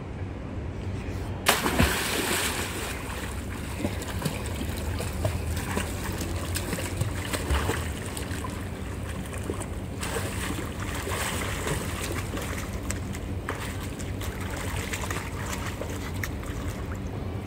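A child swimming in a pool, kicking and splashing the water continuously. The splashing starts suddenly about a second and a half in.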